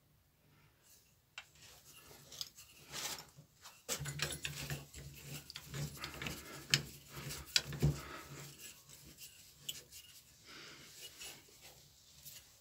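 Hand work on a small bench sheet-metal brake: a steel patch being slid into place and the clamp screws turned down, giving light metal-on-metal scraping and scattered clicks and knocks. The handling gets busier about four seconds in, with a couple of sharper knocks near the middle.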